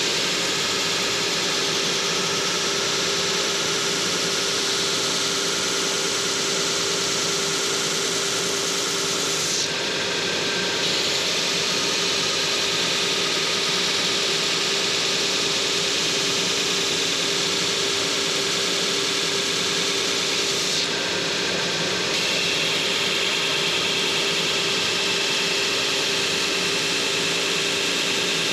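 Large vertical belt sander running with a steady hum while a wooden wagon-wheel spoke is pressed against the belt, sanding a bevel onto its tenon end. The sanding hiss changes tone twice, about ten and about twenty-one seconds in.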